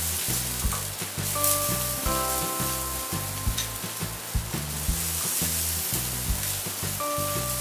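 Butter sizzling and frying as it melts on a dosa on a hot tawa, with a spoon spreading it across the surface. Background music with held notes and a low beat plays underneath.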